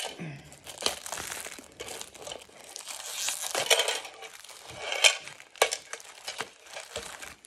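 Clear plastic wrapping crinkling and tearing as it is pulled off a small metal money box, an irregular rustle with many sharp crackles.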